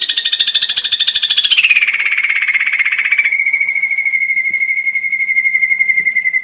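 Ashy drongo song from a bird-training (masteran) recording: a loud, very fast, even pulsed trill that slides down in pitch about one and a half seconds in, then holds on a lower steady trill before cutting off suddenly near the end.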